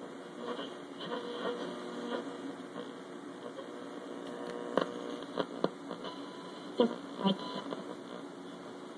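A 1960s General Electric AM/FM clock radio's speaker gives a steady hum and hiss between broadcast speech, with a few sharp crackles about halfway through. It is typical of the weak, noisy reception the owner suspects comes from a corroded tuning capacitor or a bad switch.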